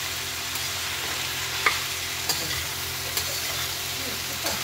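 Diced potatoes, onion and falar frying in oil in a kadhai: a steady sizzle while a steel spatula stirs them, clinking sharply against the pan four times.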